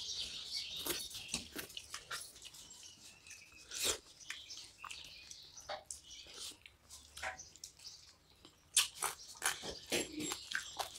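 People eating fish head curry and rice by hand: wet chewing, biting and mouth smacks, heard as a string of short, sharp clicks, with fingers squishing rice and curry on steel plates. Birds chirp faintly during the first few seconds.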